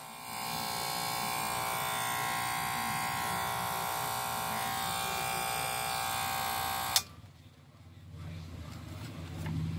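Jinghao electric hair clipper running with a steady buzz, then switched off with a click about seven seconds in. A low rumble builds near the end.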